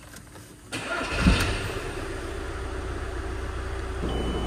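2006 Audi A4 B7 2.0 TDI diesel engine cranking and catching about a second in, then idling steadily. Near the end a steady electronic warning chime starts: the coolant level warning, falsely triggered by a faulty level sensor in the header tank while the level is actually fine.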